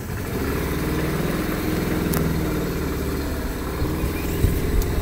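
Boat engine of a motorized canoe running steadily while underway, with a few louder knocks near the end.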